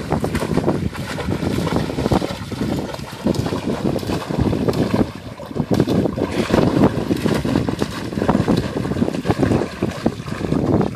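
Water splashing and churning as a puppy and a larger dog swim and paddle, under wind buffeting the microphone in uneven gusts.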